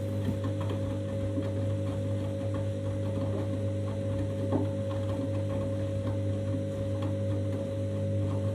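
Candy washing machine's drum motor running steadily through the main wash of a 90° cycle: an even hum with faint, scattered light knocks.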